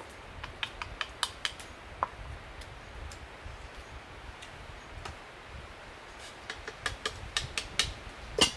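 Chopsticks clicking against a cup and a cooking pot while eating: scattered light taps in small bursts, with a louder knock near the end.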